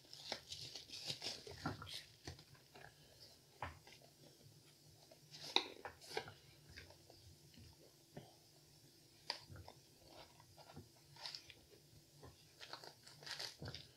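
Faint rustling and crinkling of bubble wrap and a cardboard knife box being handled and opened, with scattered small crackles and taps.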